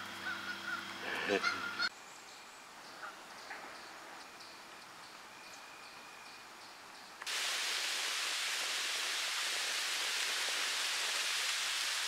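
Canada geese honking for about the first two seconds over a low steady hum, then a sudden cut to a quiet stretch with a few faint bird chirps. From about seven seconds in, a steady rushing hiss takes over.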